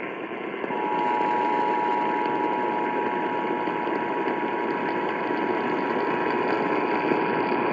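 Emergency Alert System two-tone attention signal, two steady tones sounding together, received over AM radio with a steady hiss of static underneath. It starts about a second in and holds unchanged.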